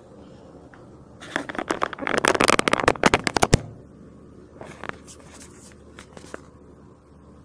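Handling noise: a dense run of crackling and clicking for about two seconds, then a few scattered clicks.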